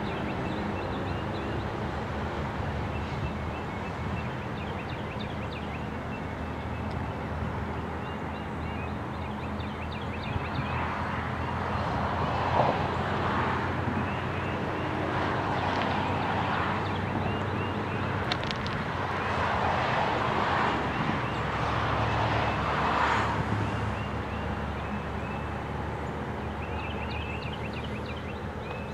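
Mixed freight train rolling along the track: a steady low rumble with a diesel engine hum, swelling louder in the middle with wheel and rail noise. Birds chirp, mostly near the start and near the end.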